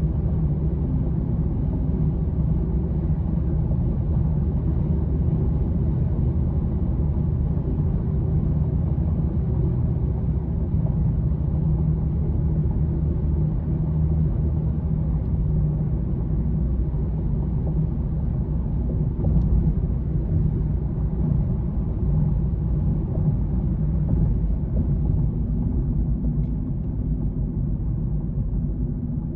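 Steady low rumble of road traffic, the continuous drone of vehicles passing over an interstate bridge overhead.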